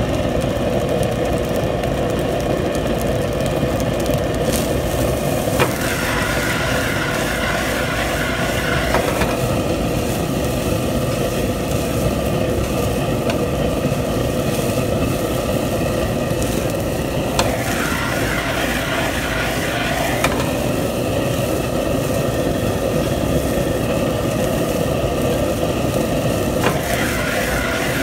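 Stir-frying fried rice: a plastic spatula scraping and turning rice in a nonstick pan, over a steady, loud rushing noise from the gas stove and kitchen ventilation. A few faint clicks occur along the way.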